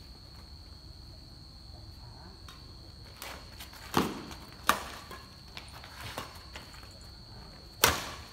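Badminton rackets striking a shuttlecock during a rally, with a few sharp cracks: a strong one about four seconds in, another shortly after, and the loudest near the end, along with lighter footfalls and shoe scuffs on concrete. A steady high insect chirring runs underneath.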